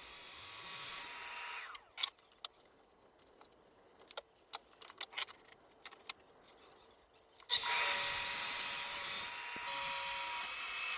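Makita track saw running through laminated maple leg blanks: one cut winds down about two seconds in, a few light clicks and knocks follow, then the saw starts again with a sharp jump about seven and a half seconds in and cuts with a steady whine.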